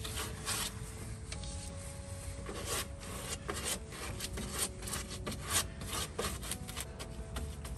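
Repeated scratchy rubbing strokes as a thick homemade epoxy undercoating is spread over the underside of a steel truck bed, with faint background music under them.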